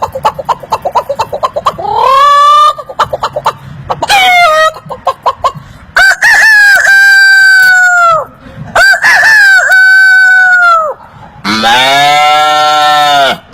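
A man imitating a chicken with his mouth: rapid clucking, then short rising squawks, then two long rooster-like crows. Near the end comes a lower, deeper drawn-out call.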